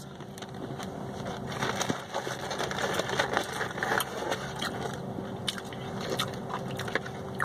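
Close-up chewing of a crispy fried chicken strip: irregular crunches and small mouth clicks.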